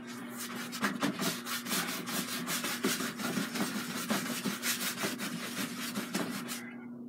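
A paintbrush scrubbing wet paint and medium onto a stretched canvas in quick, repeated back-and-forth strokes, a scratchy rubbing that stops near the end.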